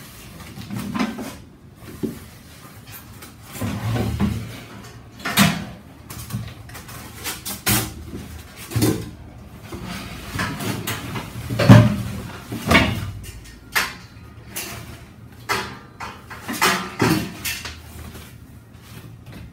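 Cardboard packaging and grill parts being handled and unpacked: irregular rustles, scrapes and bumps, the loudest knock about twelve seconds in.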